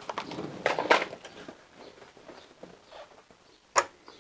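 Hands handling the new fuel filter's plastic fuel-line connectors: a rustle of scraping and tapping in the first second and a half, then one sharp click near the end.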